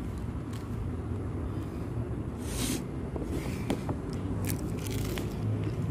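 Raw lettuce leaves being torn and bitten, a few short crisp crackling bursts and clicks, over a steady low rumble.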